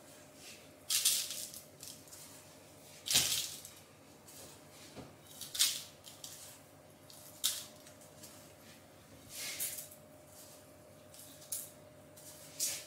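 Gloved hands scooping cake crumbs from a glass bowl and pressing them onto a cream-coated cake: a series of short rustles, one every second or two, over a faint steady hum.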